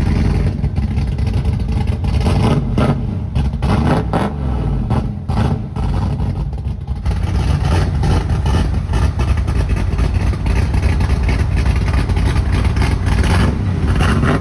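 Freshly rebuilt Chevrolet 305 small-block V8, with a COMP Cams Xtreme Energy cam, running in a 1985 IROC-Z Camaro. The engine note rises and falls throughout.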